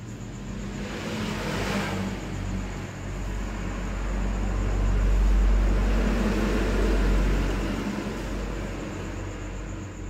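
A vehicle passing by: a low rumble that swells to its loudest about halfway through and then fades away.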